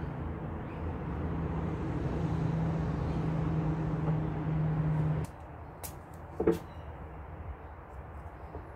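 A steady, low motor hum, engine-like, that cuts off abruptly about five seconds in. A few light clicks and one short louder sound follow.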